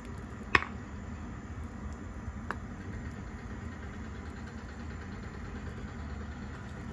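A ladle tapping against the side of a clay soup pot: one sharp clink about half a second in and a lighter one a couple of seconds later, over a steady low hum from the stove.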